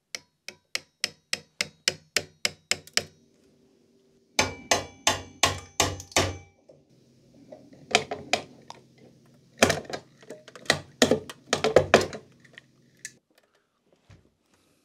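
Quick light taps of a folding knife striking plastic push-pins to drive them through the cover of a 1970s battery charger, so the pins' wall-plug sleeves collapse and release the case. The taps come in several rapid runs, some ringing briefly; the loudest run is around ten seconds in.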